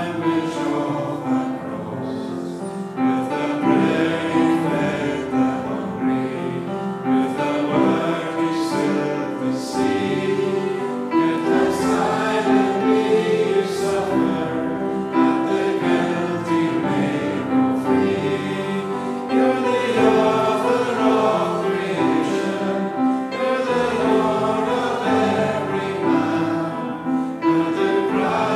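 A church congregation singing a hymn together, many voices carrying the melody without a break.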